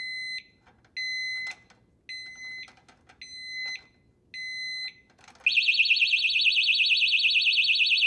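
Kryptonite Kryptolok 6A alarm disc lock on a motorcycle brake disc being jostled. It gives five short high beeps about a second apart, with light knocks of handling between them. About five and a half seconds in, its full alarm goes off as a very loud, rapidly pulsing shriek that holds steady.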